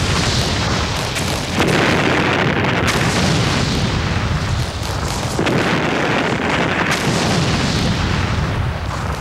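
Artillery bombardment: many heavy guns firing, their booms overlapping into a continuous rumble, with a fresh heavy boom every second or two.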